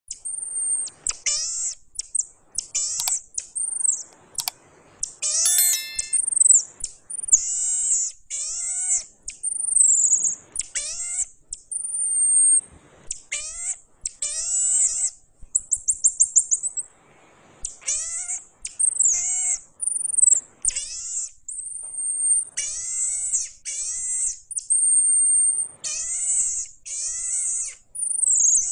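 Pygmy marmosets calling: a continuous string of very high, thin whistles and chirps, many sweeping downward and some held as long, steady high notes. About halfway through comes a quick trill of short pips.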